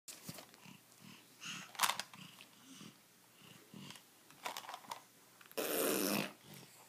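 A young boy making mouth sound effects while he plays: a run of short, breathy voice noises, then one loud hissing burst about five and a half seconds in.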